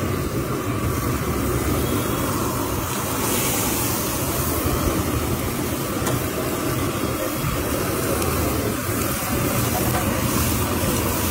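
Steady street noise with a traffic-like hum, with background voices mixed in.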